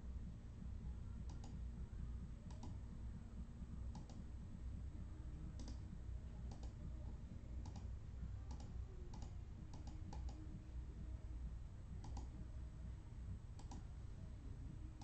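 Faint, scattered clicks, about a dozen at irregular intervals, over a steady low hum.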